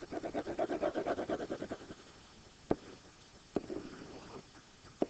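A pen scribbling fast back and forth on a hard writing surface, about ten strokes a second, as a square is shaded in. Then come three sharp taps of the pen tip on the surface and a short drawn stroke.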